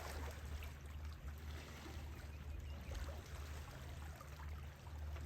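Wind rumbling on the microphone over a faint, steady wash of small waves at the shoreline.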